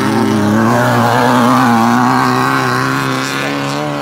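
Class 9 off-road race buggy engine running hard through a dirt curve, its pitch wavering up and down with the throttle, then fading a little near the end as it moves away.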